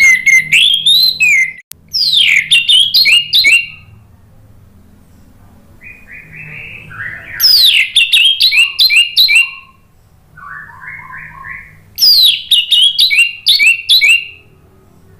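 Orange-headed thrush singing in four loud bursts of rapid, high whistled notes, each note sweeping downward, with softer, lower chirping phrases in the pauses.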